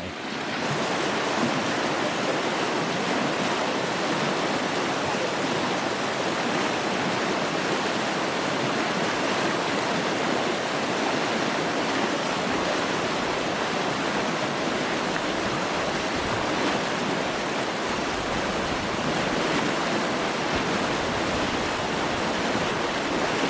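Fast-flowing mountain creek full of snowmelt, rushing steadily under overhanging snow banks.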